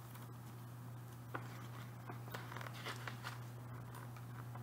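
Paper pattern sheets handled and leafed through, giving faint scattered rustles and crinkles, busiest in the middle, over a steady low hum.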